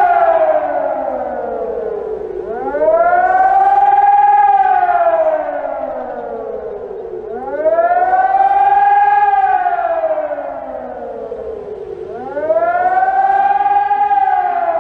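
Civil defense siren wailing: its pitch rises quickly, holds briefly at the top, then slides down more slowly, over and over, about once every five seconds.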